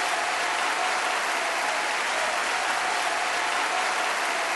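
Steady stadium crowd noise: a large crowd clapping and murmuring in a dense, even hiss.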